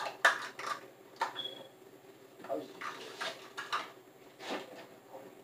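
Kitchen utensils being handled: a string of short knocks and clinks, one with a brief high ring about a second and a half in.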